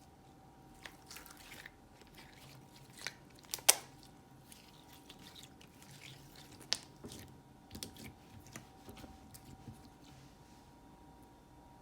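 Hands squishing and poking slime, giving scattered sticky clicks and pops, the loudest a little before four seconds in and another near seven seconds.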